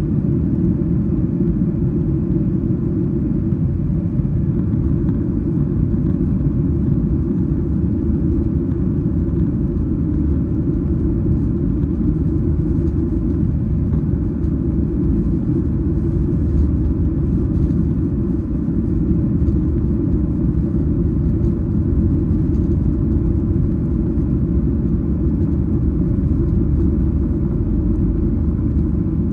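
Steady low cabin rumble inside a Boeing 737-8 MAX, from its CFM LEAP-1B engines and the airflow, even throughout with no changes.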